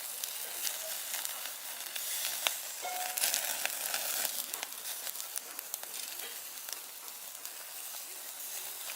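Food sizzling as it fries in a hot pan: a steady hiss with many small crackling pops.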